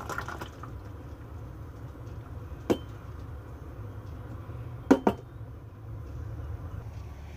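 A drinking tumbler knocked against a kitchen counter: one sharp knock nearly three seconds in and a quick double knock about five seconds in, over a low steady hum.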